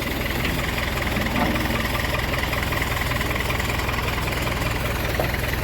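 Bobcat skid-steer loader's engine running steadily.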